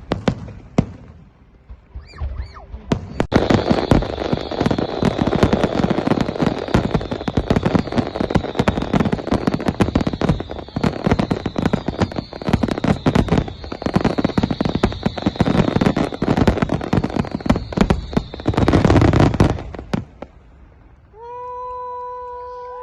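Fireworks going off: a few loud bangs at the start, then from about three seconds in a dense, continuous crackle of many small pops over a hiss. The crackle stops suddenly near the end, and a steady pitched tone starts just after.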